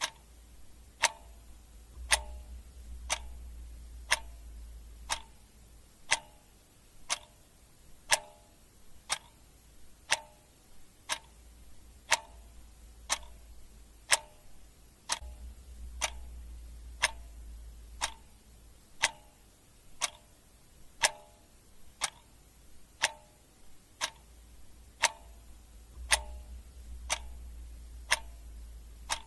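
Clock ticking steadily, one tick a second.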